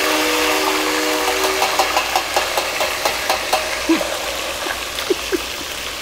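Seasoned chicken pieces deep-frying in a pot of oil heated to about 370°F: a loud, steady sizzle with a quick run of crackling pops in the middle, easing a little toward the end.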